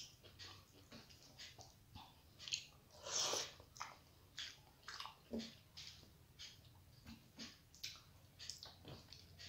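Close-up chewing and wet mouth sounds of someone eating rice and vegetable curry by hand, a string of short soft smacks and clicks, with one longer, louder burst of noise about three seconds in.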